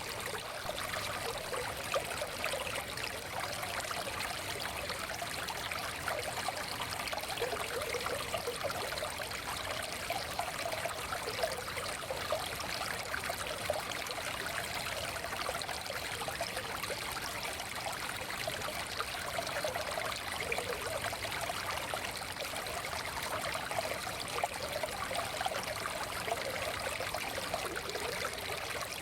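A small stream flowing and babbling steadily over rocks, a continuous rush with fine splashing and trickling.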